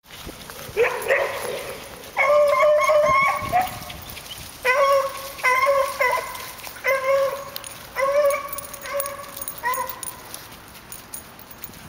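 A dog barking in a run of drawn-out, high yelping barks, roughly one a second, with a shorter yip about a second in.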